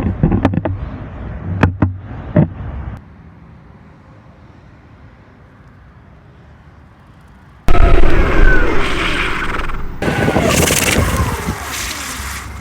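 Electric skateboard riding: wheels rattling over pavement with a few sharp knocks, then a few seconds of low quiet hum. Near eight seconds in it cuts suddenly to loud wind buffeting the microphone, with the board's motors whining in gliding pitch that falls and rises with speed.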